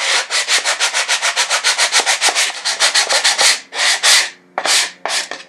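Sanding block rubbed quickly back and forth along the edge of an MDF jig piece, about nine short strokes a second, then three slower, longer strokes near the end. It is smoothing off burrs so the edge stays flat for a template to slide along.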